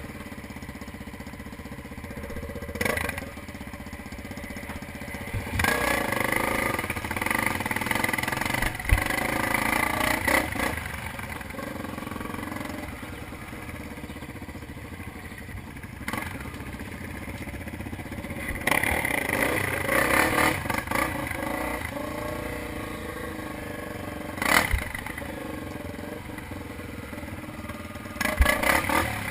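Off-road motorcycle engine running on a dirt trail, revving up and easing off twice, with a few sharp knocks and clatter from the ride.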